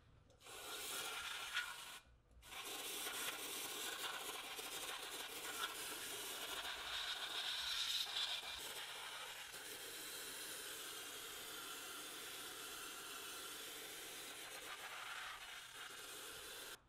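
Aerosol spray can hissing through a straw nozzle onto metal drill parts. A short burst of about a second and a half, a brief pause, then one long continuous spray that cuts off suddenly near the end.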